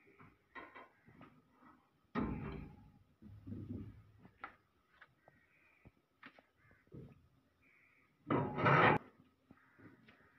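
Irregular clanks, knocks and scrapes of steel parts being handled while the thresher basket (concave) of a Swaraj combine harvester is fitted, with one longer, louder scrape near the end.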